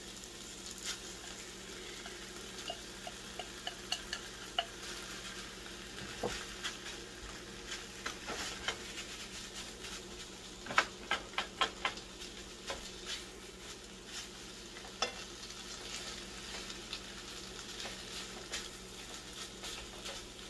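Seasoned textured soy frying in a pan with a steady sizzle while a plastic slotted spatula scrapes it out of a bowl and stirs it, giving scattered scrapes and clicks. A quick run of sharp taps about halfway through.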